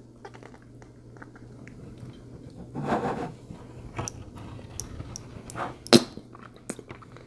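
Faint mouth noises from puckered fish-face lips: small lip smacks and pops, with a short puff of breath about three seconds in and a sharper pop near the end, over a low steady hum.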